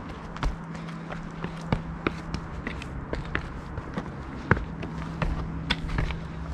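Footsteps of hikers climbing a rocky trail: irregular scuffs and sharp clicks of shoes on stone steps and dirt, the sharpest about four and a half seconds in.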